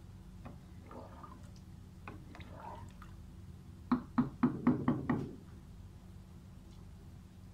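Wooden spatula stirring rice in broth in a pot, then knocked on the pot about six times in quick succession a little past the middle, the loudest sounds, over a steady low hum.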